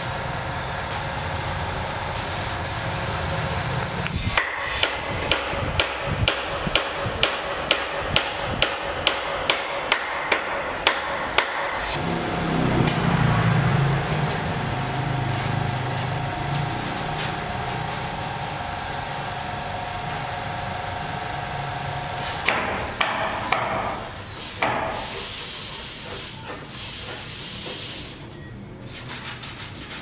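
Building-site work sounds: a steady hiss of an air compressor and spray gun at first, then a run of hammer blows about two a second for some seven seconds, then steady hiss and hum again with a few knocks near the end.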